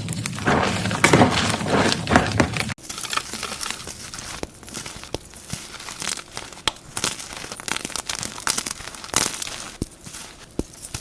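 Gym chalk being crushed and crumbled. Dense, loud crunching for the first few seconds, then after an abrupt cut, quieter crackling and crumbling with scattered sharp snaps.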